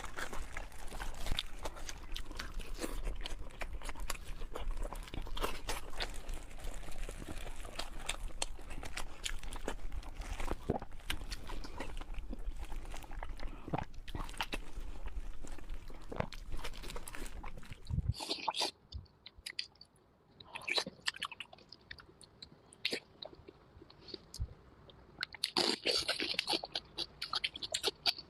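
A person chewing and crunching food with many small, sharp mouth clicks. About two-thirds of the way through, the steady low background hum stops and the chewing becomes sparser, then crackly again near the end.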